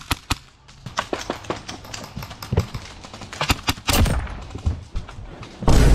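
Airsoft guns firing in a game: scattered sharp pops and clicks at irregular spacing, louder around four seconds in. A loud, sudden noise starts just at the end.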